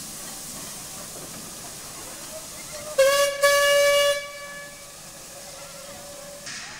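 Narrow-gauge steam locomotive's whistle sounding about three seconds in: a short toot, then a longer blast on one steady note that dies away slowly over the next two seconds. A burst of steam hiss starts near the end.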